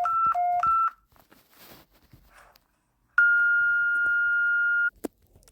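Electronic emergency-alert warning tones: a fast high-low two-tone beeping, each tone about a quarter second, stops just under a second in. After a pause, one steady high beep sounds for about a second and a half, followed by a short click.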